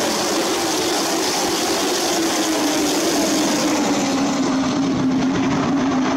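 Pack of late model stock car V8 engines running at race speed, one strong engine note falling in pitch over the first few seconds and then holding steady.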